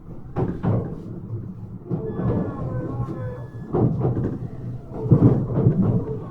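Y000-series commuter train running, heard from inside the car: a steady rumble with wheel-on-rail knocks, and from about two seconds in the whine of its Toshiba IGBT inverter and motors gliding up and down in pitch.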